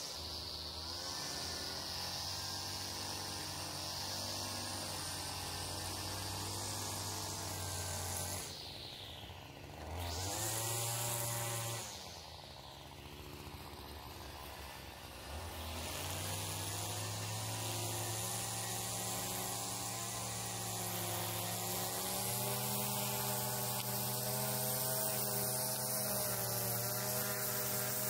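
Small petrol engine of outdoor power equipment running steadily. Twice its pitch drops as the throttle is eased off and then rises again as it is opened back up.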